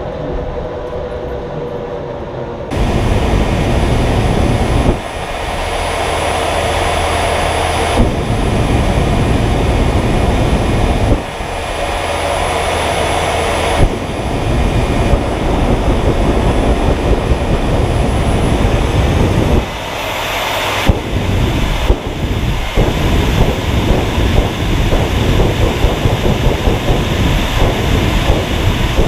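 General Electric J79 jet engine of a jet-powered semi truck running loud, a dense rushing noise. It starts quieter, jumps suddenly to full loudness a few seconds in, then breaks off and resumes abruptly several times, with a few sharp pops along the way.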